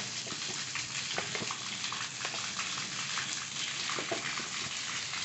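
Water running and spattering out of an open PVC pipe fitting, a steady hiss, with a few light clicks as a plastic PET bottle is screwed onto the fitting.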